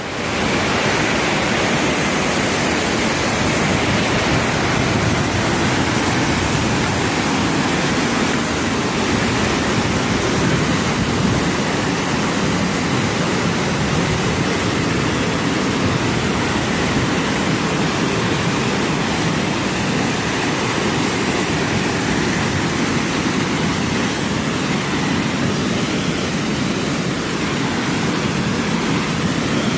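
Waterfall pouring onto rocks and a rushing stream below it: a loud, steady rush of water that does not let up.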